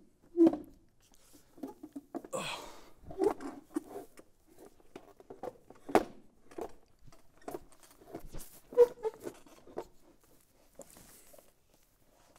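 A molded plastic shell chair being handled and sat in: irregular knocks and clicks, with a longer scrape or rustle a couple of seconds in and a sharper knock about six seconds in.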